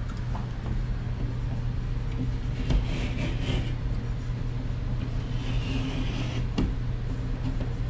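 Utility knife cutting through drywall, with two rasping scrapes about three seconds and five and a half seconds in and a sharp click shortly after the second. A steady low hum sits underneath throughout.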